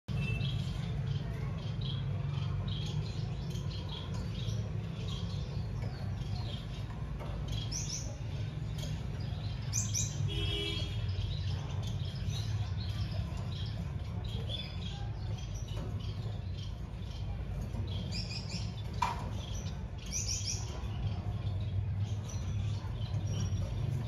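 Small caged finches chirping: many short, high calls and a few quick falling notes scattered throughout, over a steady low hum. A single sharp click comes about three-quarters of the way through.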